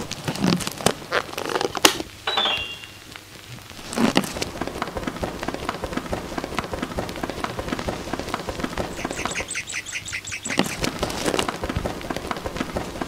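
Sound-design texture of crackling clicks: a few sharp clicks and a brief high chirp about two seconds in, then dense, continuous crackling, with a fast run of high ticks around the ten-second mark.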